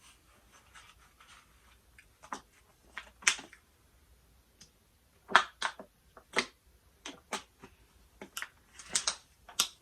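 Eating noodles close to the microphone: irregular short clicks and brief smacking and slurping mouth sounds, with a few louder ones.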